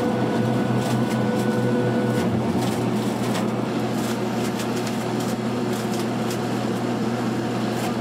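Sweet corn harvester and tractor running steadily with an even mechanical hum, and a higher whine that stops about two seconds in. Irregular knocks of ears of corn dropping off the harvester's elevator onto the wagon load.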